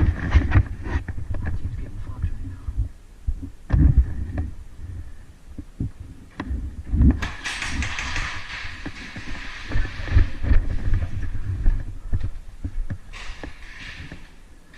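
Repeated low thuds and rustling from a body-worn camera jostled as its wearer moves, loudest about four and seven seconds in, with a stretch of hissing noise through the middle.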